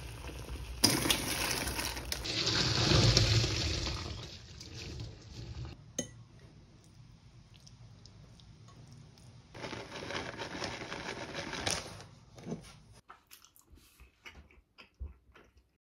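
Kitchen sounds: a stainless steel pot lid lifted off water at a rolling boil, the bubbling loudest in the first few seconds. Later a fork stirs pasta in a glass bowl, with a few sharp clinks.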